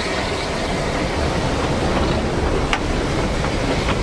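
Narrow-gauge railway carriages rolling past close by: a steady rumble of wheels running on the track, with two sharp clicks in the second half.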